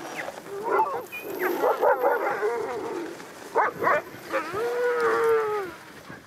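A harnessed team of Greenland sled dogs barking and yelping excitedly, several dogs at once, as they wait to set off. Near the end one dog gives a single long, slowly falling howl.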